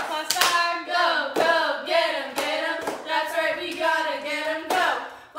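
Several girls' voices chanting a cheer in unison, with sharp claps about once a second.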